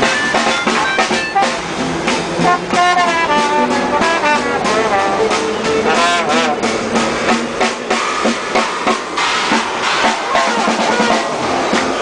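Live swing jazz band playing an up-tempo number, with brass horns carrying the melody over a steady drum beat.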